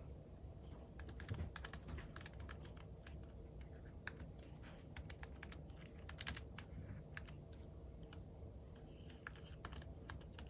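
Keys of an iClever KP10 Bluetooth number pad being typed on: a run of irregular quick key clicks, several a second.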